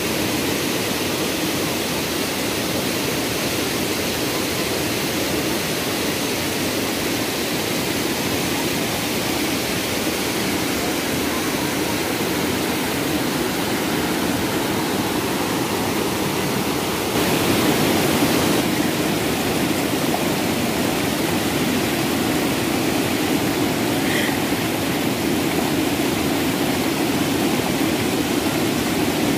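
Waterfall rushing steadily, with a brief louder surge of the rush a little past halfway.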